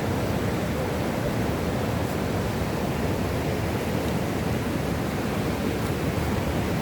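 A waterfall rushing with a steady, even roar of falling water.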